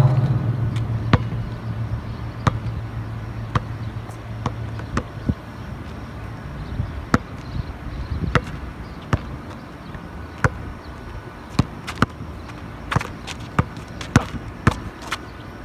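Basketball bouncing on an outdoor asphalt court: single bounces about a second apart, coming quicker as dribbling near the end. A louder hit comes at the very start as the ball strikes the rim, followed by a low hum that fades over the first few seconds.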